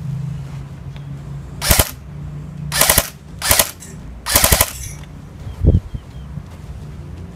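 Airsoft Honey Badger replica rifle firing four short rapid bursts about a second apart, followed by a single low thud.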